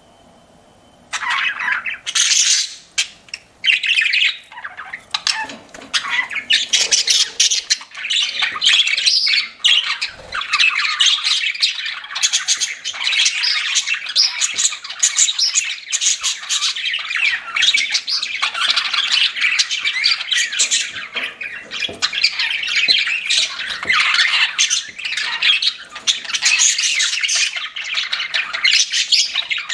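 Pet budgerigars chattering and squawking together in a dense, continuous warble of quick chirps, starting about a second in after a brief quiet moment.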